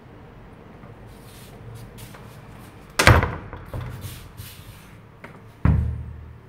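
Wooden door slamming: a loud bang about three seconds in, a few lighter knocks, then a second bang near the end with a short low rumble after it.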